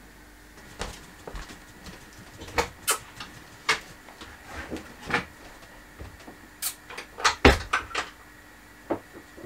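Cupboard doors and household items knocking and clicking as they are handled in a small room. About a dozen sharp knocks come at uneven intervals, the loudest about seven and a half seconds in.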